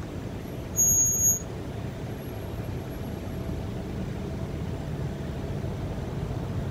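Low steady rumble of slow road traffic, cars idling and creeping forward at close range, with wind on the microphone. About a second in comes a short high-pitched squeal lasting about half a second, louder than everything else.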